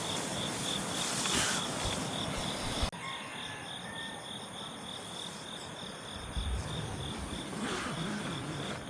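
Insects, crickets by their sound, chirping in a steady pulsing rhythm of about four chirps a second, with other insects trilling higher up. The background changes abruptly about three seconds in.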